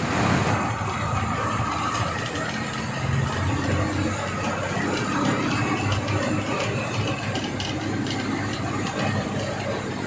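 Bus engine running with road noise, heard from inside the driver's cab as the bus drives along.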